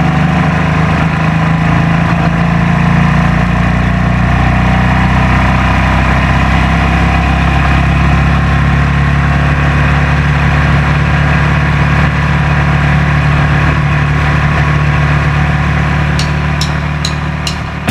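Bandolero race car's 570cc Briggs & Stratton engine running at a steady racing pace, heard loud from inside the cockpit. A few sharp ticks near the end.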